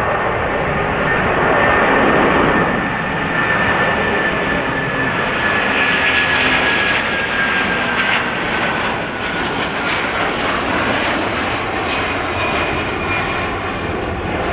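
Airbus A330-300 airliner climbing out just after takeoff, its twin jet engines at takeoff power: steady loud jet noise with a thin high whine that slowly falls in pitch as the aircraft draws away.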